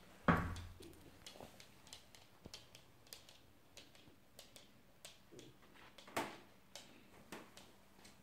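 A dog's claws clicking on a laminate floor as it walks, a few irregular ticks a second. A loud thump comes about a third of a second in, and another knock around six seconds.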